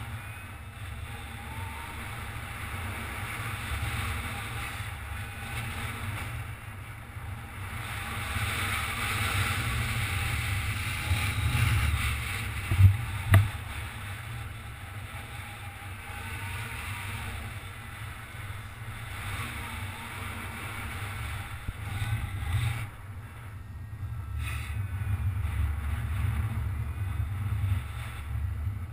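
Wind rushing over the camera microphone of a paraglider in flight: a steady low buffeting rumble, with two short, louder buffets about halfway through.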